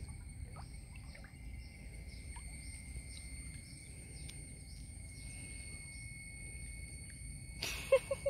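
Outdoor ambience: a low rumble, a steady thin high whine and scattered short chirps, with a brief noisy rustling burst near the end.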